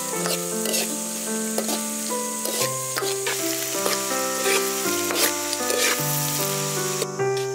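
Diced carrot, corn, peas and sausage sizzling in a hot wok as a metal spatula stirs and tosses them, with short scrapes against the pan. Soft background music with piano-like notes plays underneath.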